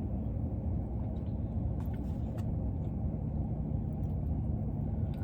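Steady low rumble with a few faint, short clicks about two seconds in.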